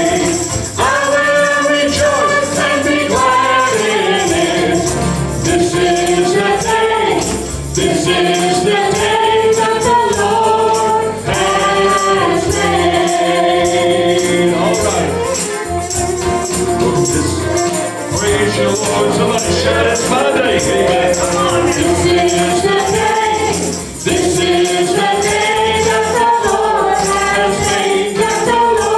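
Church worship team singing a gospel praise song into microphones, a man's voice and several women's voices together, over accompanying music with a steady beat.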